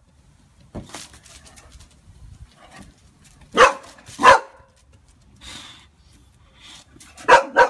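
Boxer dog barking nervously at a balloon that scares her: two barks a little over half a second apart midway, then a quick pair near the end.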